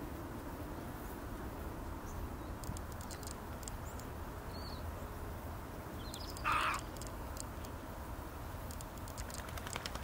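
Steady low outdoor background noise with a few faint ticks and a small chirp. About six and a half seconds in comes one short, louder, rasping bird call.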